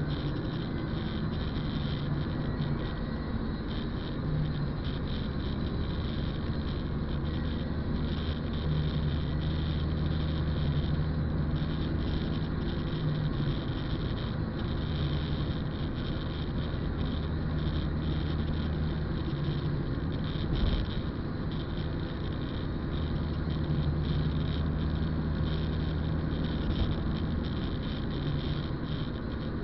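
Steady car engine hum and road noise heard from inside the car's cabin while driving in slow traffic, with one soft knock about two-thirds of the way through.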